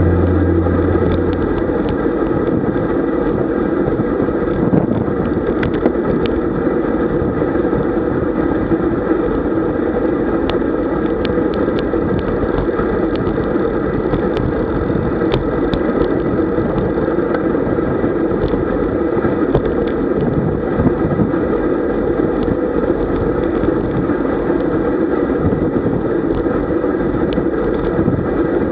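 Steady wind rush and tyre-on-road noise on the camera of a road cyclist riding at about 38 km/h in a group, with scattered faint clicks.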